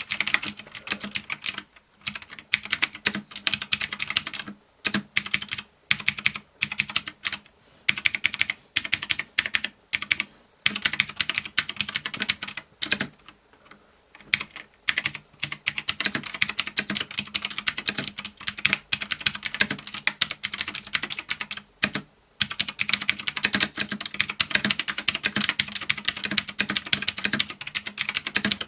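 Typing on a Razer BlackWidow Tournament Edition mechanical keyboard with clicky Razer Green switches (the equivalent of Cherry MX Blues): a stream of sharp key clicks. In the middle stretch they come in short bursts with pauses; in the second half the typing is fast and continuous, with one brief pause.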